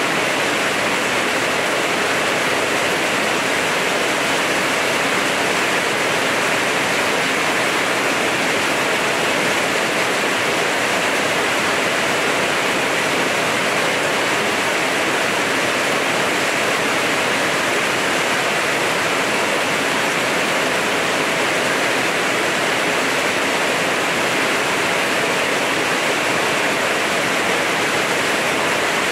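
Heavy rain falling steadily on leaves and roofs, a dense, even hiss, with runoff pouring off a roof edge.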